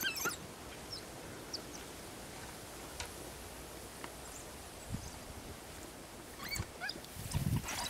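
African wild dogs feeding on an impala carcass: a few short, high-pitched chirping calls at the start and again near the end, over quieter feeding noises that grow louder near the end.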